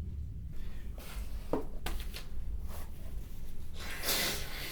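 A woman's breathing just after a sneeze: a few faint clicks and rustles, then a louder breath about four seconds in.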